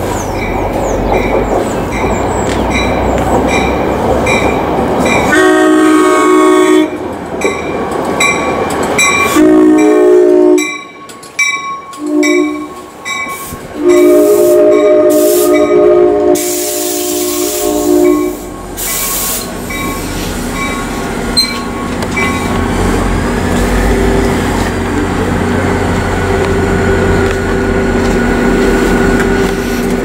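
New Jersey Transit commuter train arriving at a station platform, sounding its horn in four blasts, long, long, short, long, which is the grade-crossing signal. Rapid, regular dinging runs under the horn. A burst of hiss follows, then the steady hum and rumble of the train as it stops at the platform.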